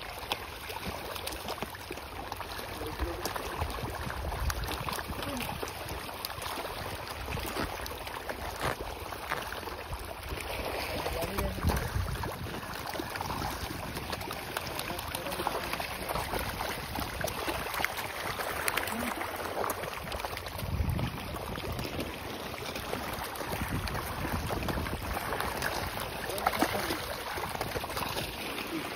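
A dense crowd of pond fish splashing and churning the water at the surface, a continuous patter of many small splashes.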